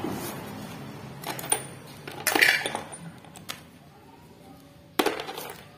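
Metal hand tools and engine parts clinking and knocking as they are handled: a handful of separate clinks, the loudest about two and a half seconds in with a short ring, and another sharp knock near the end.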